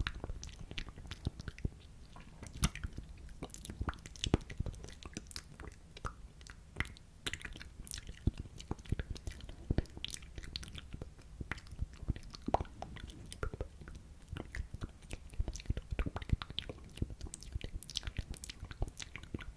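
ASMR mouth sounds made close to a microphone: a rapid, irregular run of lip and tongue clicks and smacks over a low steady rumble.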